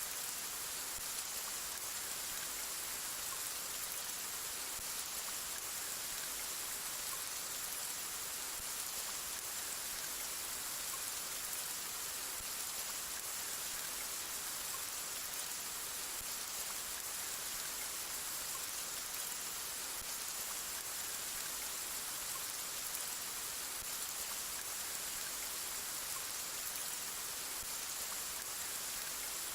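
Steady rain falling, an even hiss of drops with no thunder or other events.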